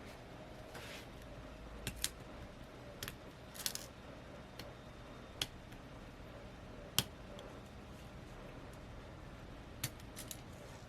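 Scattered small, sharp clicks and taps, about eight over ten seconds, as a tool works at the ribbon-cable connectors inside a Samsung Galaxy A50 phone and pops them off the board.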